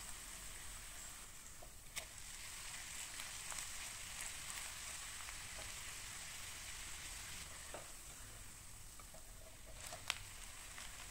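A shredded-potato pancake frying in shallow vegetable oil in a nonstick pan: a steady, faint sizzle with small crackles and pops. Two sharper ticks stand out, one about two seconds in and a louder one near the end.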